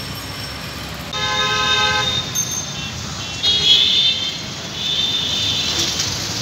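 Road traffic with vehicle horns honking. One horn sounds for about a second, starting about a second in, and shriller horn toots follow near the middle and toward the end.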